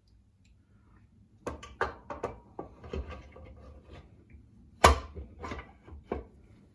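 Irregular knocks and clunks of metal parts as the BSA A65 engine's crankcase halves are fitted together over the crankshaft. The sharpest knock comes about five seconds in.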